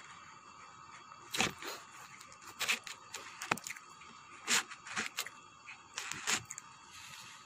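Food packaging being handled: short, irregular crinkling and crackling noises, roughly one every second, over a faint steady background.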